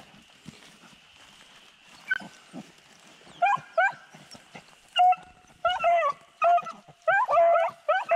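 Rabbit hounds baying: short yelping bays that start about three seconds in, come quicker from about five seconds in, with more than one dog overlapping near the end. The pack is giving mouth on a rabbit's scent.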